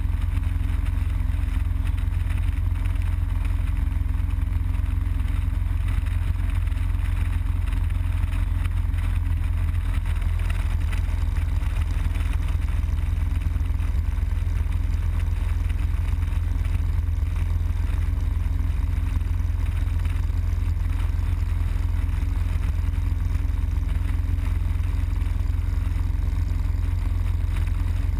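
Harley-Davidson Road Glide Custom's V-twin engine running steadily at highway cruising speed, under a constant wind rumble on the bike-mounted microphone.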